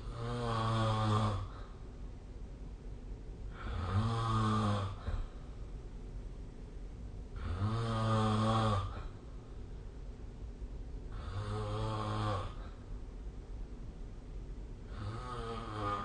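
A person snoring, five snores about every three and a half to four seconds, each a low buzzing rasp lasting about a second and a half. The last snore is the faintest.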